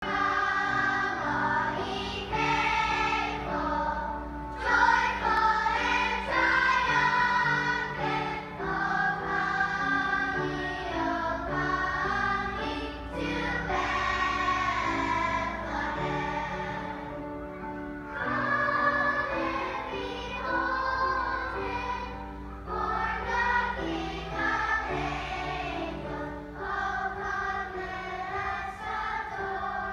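Children's choir singing a Christmas song together, over steady held low accompaniment notes.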